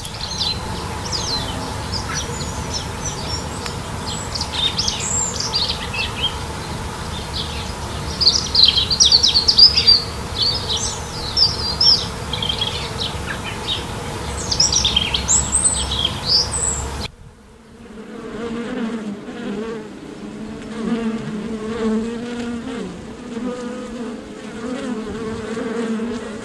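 Songbirds chirping and singing over a steady insect hum. After a sudden cut about two-thirds of the way through, bees buzz in a flowering tree, their drone wavering in pitch.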